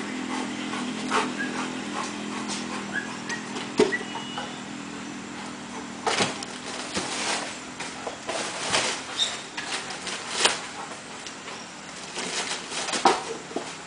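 A dog searching through a pile of old tyres and junk, with irregular knocks and rustling clatters as it bumps and climbs over them; the loudest knocks come about six, ten and thirteen seconds in.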